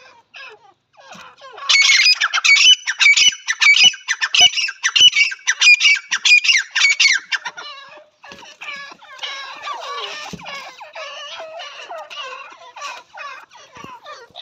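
Female grey francolins calling: a loud, rapid run of high squeaky notes from about two seconds in, lasting some six seconds, then softer, lower chattering calls.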